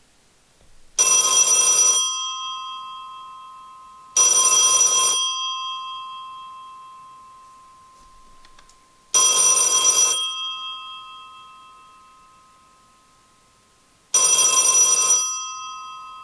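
Electromechanical bell ringer of an old black Bakelite rotary-dial telephone ringing four times, about a second each and several seconds apart. After each ring the two bell tones hang on and fade away.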